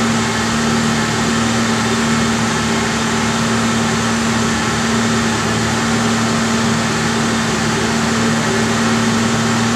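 Steady mechanical hum with one constant droning note.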